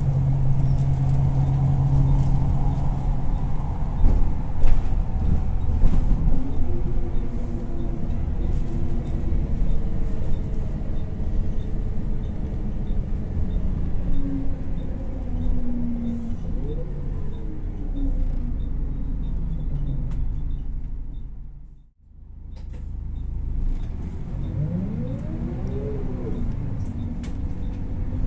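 Volvo B10BLE bus's diesel engine heard from inside the passenger cabin, running under way and rising in pitch as it pulls away twice, with a few knocks about four seconds in. Near the three-quarter mark the sound fades out and straight back in.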